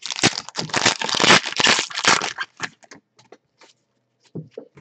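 Baseball card pack wrapper crinkling and tearing as it is ripped open, dense for about two and a half seconds, then a few light clicks and rustles as the cards are slid out.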